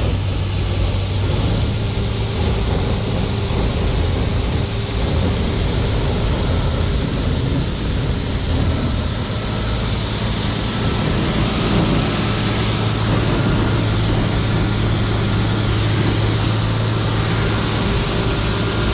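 Combine harvester running steadily while harvesting corn: a constant engine drone with a strong low hum under a wide rush of machine noise.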